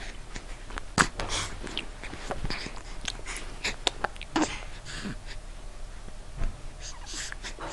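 Repeated hiccups, each a short sudden catch of breath, the strongest about a second in, with breathing and small mouth noises between them.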